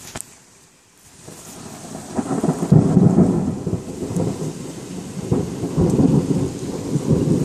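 Thunder rumbling: a low roll builds from about a second in, peaks around three seconds and keeps rolling and crackling, over a steady hiss of rain.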